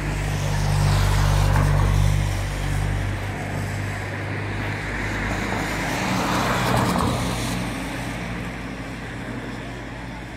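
Road traffic on a wet road: a low engine rumble, loudest over the first couple of seconds and then fading. About six seconds in, a vehicle's tyre hiss swells and dies away again.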